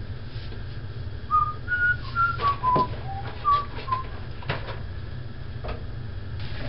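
A person whistling a short tune of about eight separate notes, mostly stepping down in pitch, over a low steady hum, with a few light knocks.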